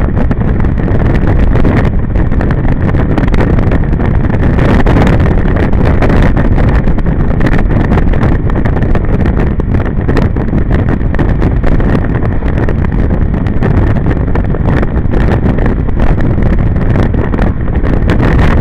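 Steady loud wind rumble on the microphone of a camera riding on a motorbike, with the bike's engine and its tyres on the wet road beneath it.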